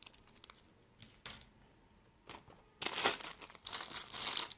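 Plastic packaging crinkling and rustling as an item is unwrapped, starting about three seconds in after a few faint clicks.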